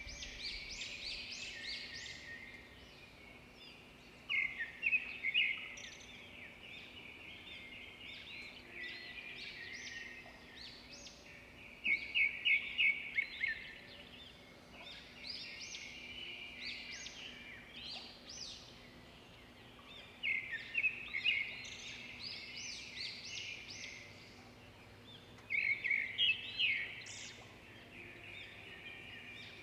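A small bird chirping and trilling in quick rapid runs, with louder bursts of fast chirps every several seconds, over a faint steady hum.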